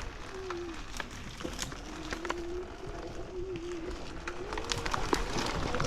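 Electric dirt bike motor whining at low speed, its pitch dipping and wavering with the throttle, with scattered sharp clicks over a low rumble.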